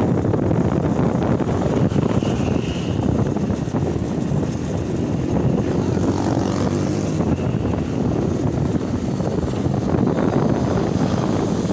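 Small motorcycle's engine running steadily while riding along a street at low speed, with rumbling road and wind noise.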